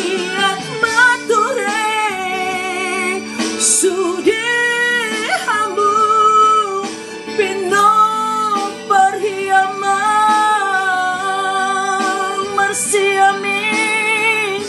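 A woman singing a Batak-language ballad with strong vibrato, holding long notes over instrumental accompaniment.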